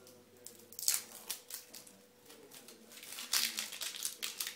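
Plastic wrapping crinkling and light plastic clicks as a carbon filter cartridge is unwrapped and handled, with a few sharp crackles about a second in and a busier run of them near the end.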